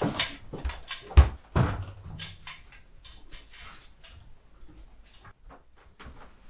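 A door thudding shut about a second in, among knocks and footsteps on wooden floorboards; the steps grow lighter and fade toward the end.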